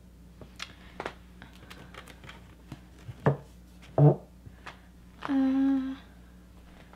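Books being slid and shifted on a bookshelf, with scattered light taps and scrapes. A woman's voice gives two short grunts, then a held thinking "hmm" about five seconds in, the loudest sound.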